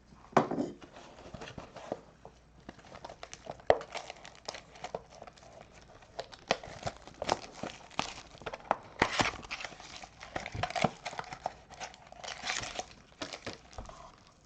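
A trading-card pack wrapper being torn open and crinkled, with irregular crackling and clicking as the cards inside are handled.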